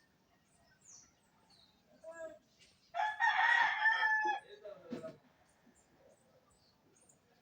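Rooster crowing once, about three seconds in: a loud, held, pitched call that drops off at the end. A shorter call comes just before it, with faint small-bird chirps around it.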